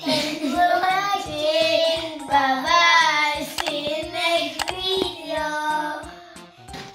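A child's voice singing a melodic outro tune over a light backing track with a steady beat, with a couple of sharp clicks around the middle.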